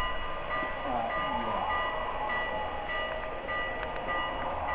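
HO-scale model oil train of tank cars rolling past on the layout track, its wheels giving a steady rumble. A repeating electronic bell tone rings over it throughout.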